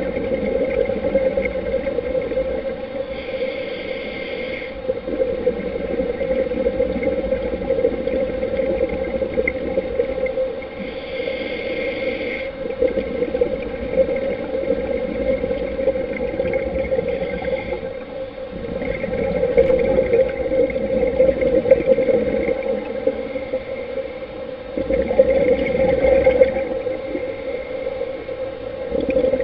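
Underwater sound from a diver's camera: a steady dull drone, broken every several seconds by the hissing burble of exhaled scuba regulator bubbles.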